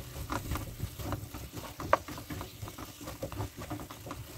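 Wooden spoon stirring Brussels sprouts and carrots as they sauté in a nonstick frying pan: irregular scrapes and light knocks of the spoon and sprouts against the pan, one louder knock about two seconds in.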